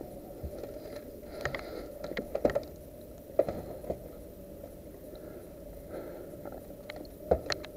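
Scattered sharp knocks and clicks: a cluster about two seconds in, a couple more soon after, and another cluster near the end, over a steady low hum.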